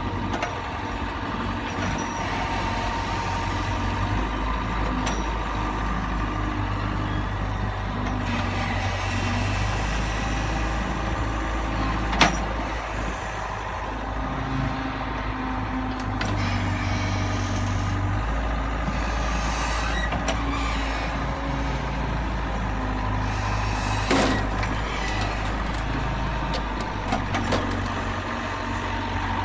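Heavy truck engine running steadily, its low tone shifting in level every few seconds, with a sharp click about twelve seconds in.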